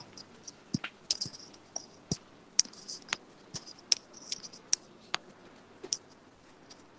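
Scattered sharp clicks and taps, roughly two or three a second at irregular spacing, dying away about six seconds in.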